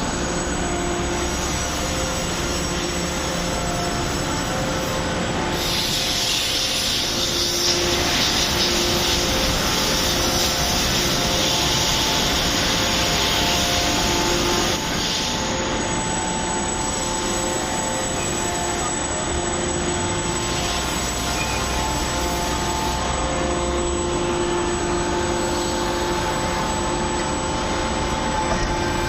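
1200-ton open-die hydraulic forging press running, a steady machine noise with a constant whine from its hydraulics. From about six seconds in to about fifteen a loud hiss rises over it, then drops back.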